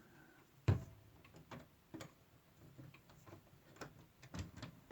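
Ticking of a circa-1978 Howard Miller 612-485 wall clock with a Kieninger movement, a string of sharp ticks. A louder knock comes just under a second in.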